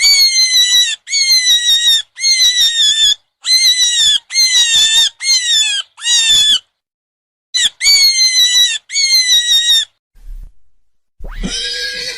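An animal giving a series of about ten high-pitched squealing calls, each about a second long with short gaps between them. Near the end a lower call begins, the start of a horse's whinny.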